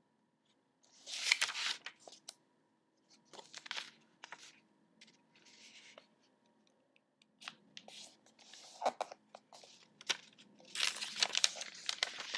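A sheet of square origami paper being folded in half by hand and creased flat: a run of short paper rustles and crisp crease strokes, the loudest near the end.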